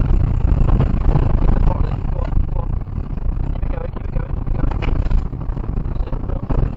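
Rally car engine working hard, heard from inside the cabin, over the rumble and rattle of driving on a loose gravel track, with a sharp knock about five seconds in. The recording is loud and distorted.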